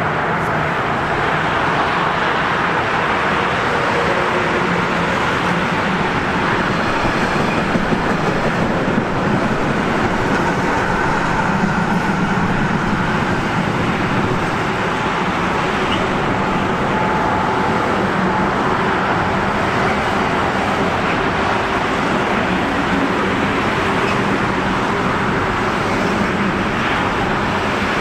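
Steady, even noise of passing vehicles, with no sudden events.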